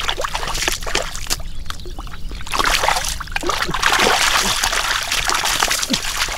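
Splashing and sloshing in shallow muddy water while catfish are caught by hand. There are scattered splats at first, then a heavier, continuous stretch of splashing from about two and a half seconds in that eases off near the end.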